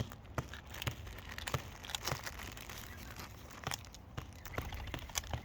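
A wild parrot crunching a snack in its beak: irregular crackly crunches and clicks.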